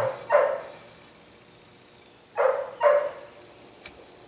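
A dog barking in the background: one bark just after the start and two more about two and a half seconds in. A faint click near the end.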